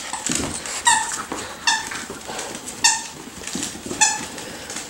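Squeaker in a plush dog toy squeaking four times, about once a second, each squeak short and high at the same pitch, as puppies chew and tug it, with light scuffling of paws on tile between.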